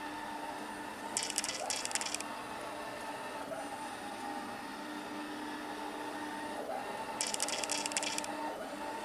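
bObsweep bObi Classic robotic vacuum cleaner running with a steady motor whir as it drives around looking for its docking station, with a brief burst of rapid high rattling about a second in and again near the end.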